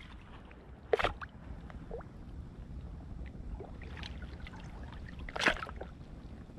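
Sea water lapping and sloshing under a steady low rumble of wind, with small irregular splashes and two louder sharp sounds, about a second in and again about five seconds in.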